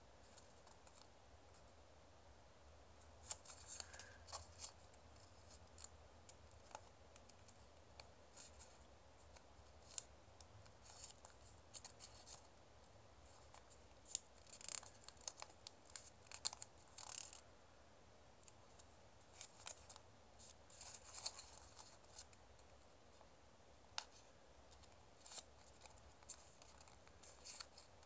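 Origami paper being folded and creased by hand: faint, intermittent crisp crackles and ticks of paper, coming in short clusters.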